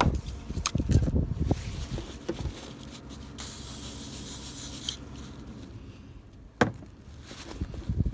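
Hands working at a small 12 V switch fitting, rubbing and scraping with a few sharp clicks. About halfway there is a burst of hiss lasting a second and a half, and a single sharp knock comes near the end.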